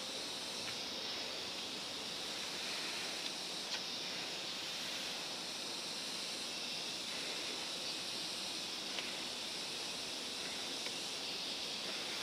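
Steady outdoor ambience: an even hiss with a stronger high band, and a few faint clicks scattered through it.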